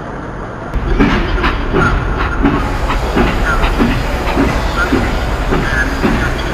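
Train moving along the rails with a rhythmic clatter of about two and a half beats a second, growing louder about a second in, with short higher squeaks over it.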